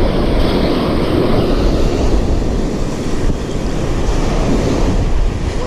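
Wind buffeting the microphone over the wash of breaking surf, a loud steady rumble.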